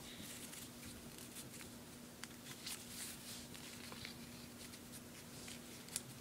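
Faint, soft rustling and crinkling of a folded paper dollar bill being unfolded by hand, in scattered small ticks, over a steady low hum.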